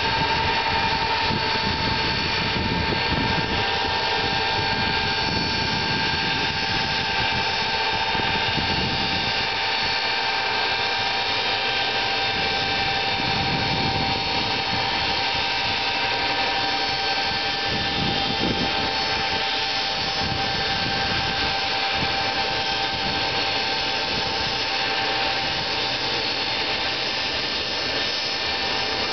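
Tupolev Tu-154M's three rear-mounted Soloviev D-30KU-154 turbofans running at taxi power as the airliner rolls past: a steady jet whine with several held tones over a constant rush.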